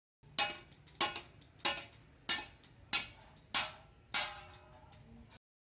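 Six sharp strikes, evenly spaced about two-thirds of a second apart, each ringing briefly before the next.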